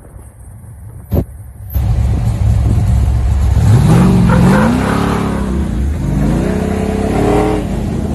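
A vehicle engine revving hard, its pitch rising and falling and then rising again, coming in loud about two seconds in after a single sharp click.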